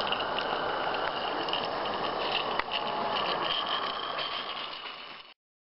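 Roundhouse G-scale live-steam locomotive running on its track: a steady hiss with small clicks. It fades and cuts off near the end.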